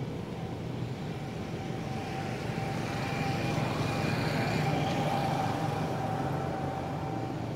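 Motor engine droning with a steady whine over it, growing louder toward the middle and then easing off, like a vehicle going past.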